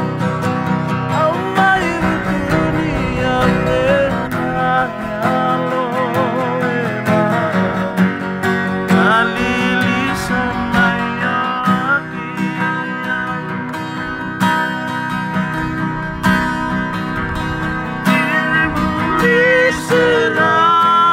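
Several acoustic guitars strummed together, with men singing a song over them.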